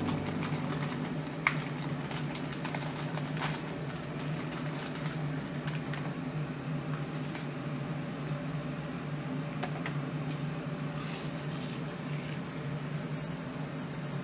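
Steady low machine hum of room noise, with a few faint clicks in the first few seconds and again about two-thirds of the way through.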